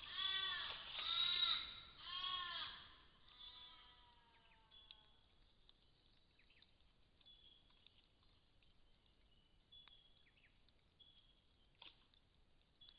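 An animal calling: a few loud, nasal, arched calls about a second apart, fading after about three seconds into a fainter drawn-out call. Faint short chirps and a single click follow.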